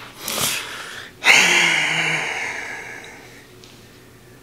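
A man's short snort of breath, then a loud, breathy laugh about a second in that trails off over the next two seconds.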